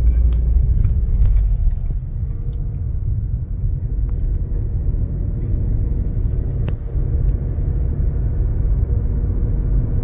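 Steady low rumble of a car driving, road and wind noise, with a few faint clicks.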